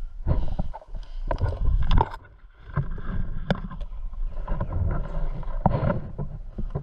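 Irregular knocks, clicks and rustling over a low rumble, typical of handling and movement noise on a body-worn camera with wind on the microphone.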